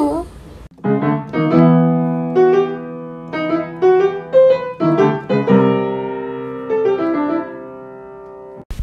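Piano music: a simple melody of single notes over held chords, stopping abruptly near the end.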